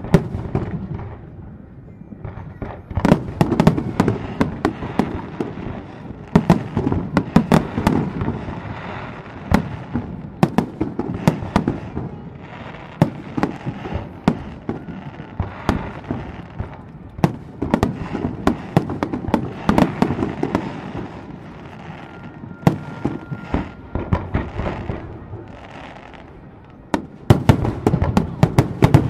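Aerial fireworks shells bursting in rapid volleys of sharp booms and crackles, each followed by a rolling echo. The bursts ease off in a lull a little after the middle, then come thick and fast again near the end.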